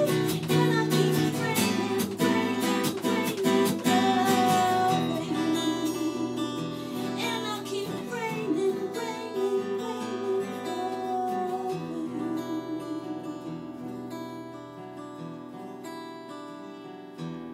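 Closing bars of an acoustic pop song: a Taylor 814ce acoustic guitar strummed hard at first, then played more softly as the music fades, with a woman singing over it. A last soft chord rings near the end.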